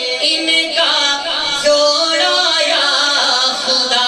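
A man singing a naat into a microphone, his voice holding long notes that slide and bend in pitch.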